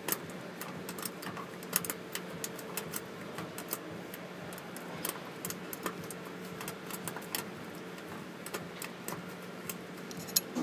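Irregular light metallic clicks and ticks of a homemade cotter-pin pick and torsion bar working the tumblers inside a small tool-chest drawer lock, over a steady low hum.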